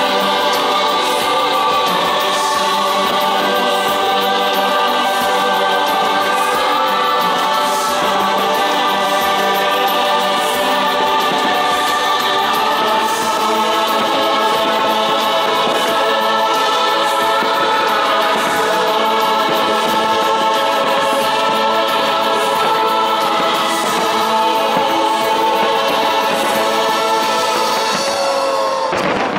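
Choral music: a choir singing long, held chords that shift every few seconds.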